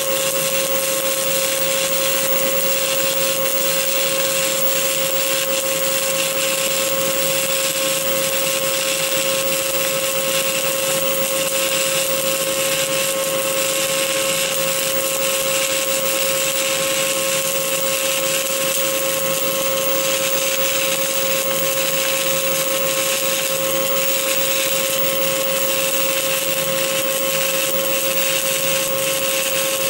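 Stick welding arc from a 2.5 mm ESAB OK 48.00 (E7018) low-hydrogen electrode burning steadily in an open root joint: a continuous, even crackling hiss with a steady tone underneath.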